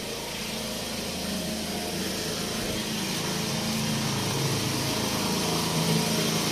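Foton dump truck's diesel engine idling steadily, growing gradually louder.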